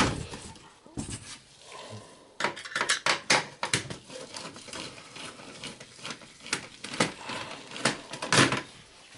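Clicks and light metallic knocks from hands working on a desktop computer's processor heat sink and steel chassis. A quick cluster comes about two and a half seconds in, followed by a few scattered single clicks.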